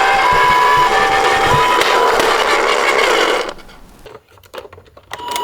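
Toy ambulance's electronic two-tone siren, switching back and forth between a high and a low note. The tones stop about two seconds in, a rough noise carries on for about another second, then it falls away to a few faint clicks. The siren starts again right at the end.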